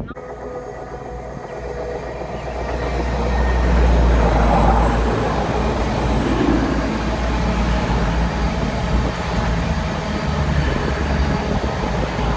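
Train passing through the station, its rumble building over the first few seconds and then running loud and steady.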